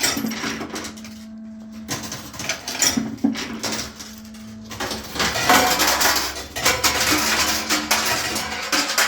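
A handful of coins shaken and jingled hard, a dense metallic clinking that comes in three bursts and is loudest and longest over the second half. Shaking coins like this is done as a charm for money and luck.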